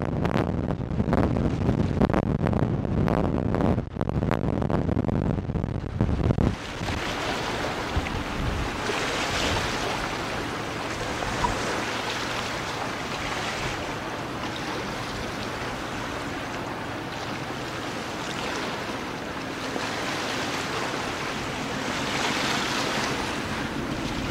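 Wind buffeting the microphone for about the first six seconds, then the steady wash of the sea, swelling and easing every few seconds.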